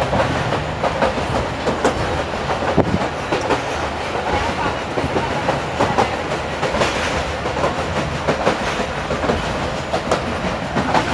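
Passenger train running, heard from on board: a steady rumble with irregular clattering knocks of the wheels over the rails.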